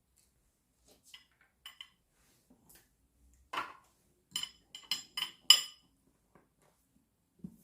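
Kitchen utensils clinking against dishware: a few light taps, then a quick run of about five ringing clinks, the last the loudest.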